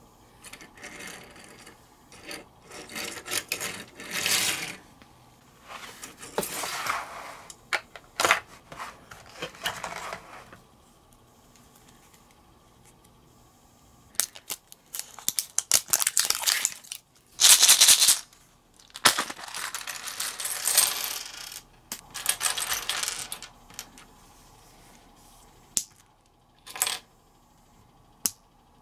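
Small plastic building bricks clicking and clattering as they are handled and snapped together. In the middle comes a louder run of rattling and clattering as a plastic surprise-egg capsule is opened and its loose bricks spill onto a wooden table.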